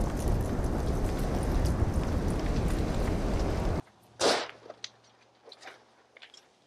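Wildfire flames roaring with heavy wind noise, loud and steady, which cuts off about four seconds in. A burning house then crackles and pops: one loud short burst just after the cut, then scattered faint snaps.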